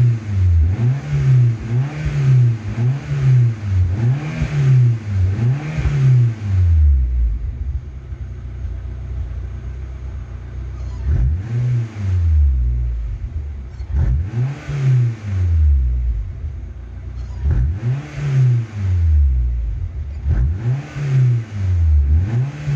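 Suzuki Jimny Sierra's engine breathing through a motorcycle silencer, revved in quick blips from idle, each rise and fall in pitch lasting about a second. The blips come in three runs, with a few seconds of steady idle between them.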